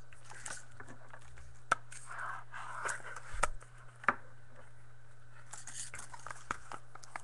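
Trading cards and their packaging being handled: light scraping and rustling with a few sharp clicks, over a steady low hum.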